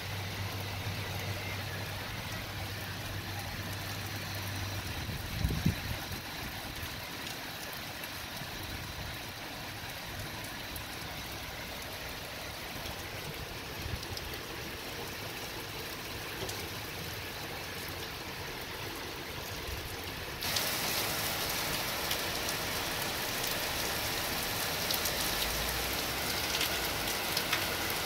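Heavy rain falling steadily on paving, roofs and foliage, a continuous hiss that suddenly grows louder and brighter about twenty seconds in as the downpour intensifies. A low hum sounds under it for the first few seconds, and a brief thump comes about five seconds in.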